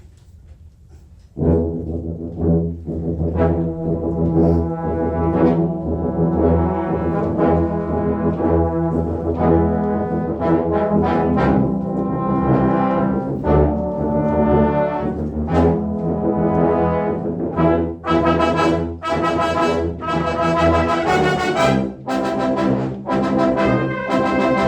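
Live brass ensemble of trumpets, horns and trombones playing a piece. After a short pause it comes back in loudly about a second and a half in, and swells to a fuller, brighter full-ensemble passage near the end.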